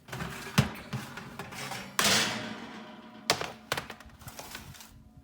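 Kitchen clatter as baking trays of cookies are taken out of the oven: several sharp knocks and thunks, with a brief scraping rush about two seconds in.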